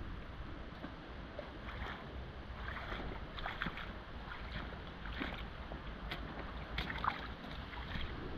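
Rubber wellington boots wading through shallow river water, a run of irregular splashing steps, over steady wind and river noise.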